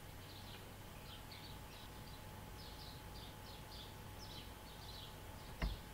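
Small birds chirping in the background: a run of short falling chirps, about two a second, over a faint steady hum. A single sharp knock near the end.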